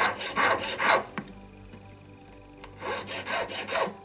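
Slotting file rasping across a silver ring setting in quick strokes, cutting slots for the claws. The filing stops for about a second and a half midway, then resumes.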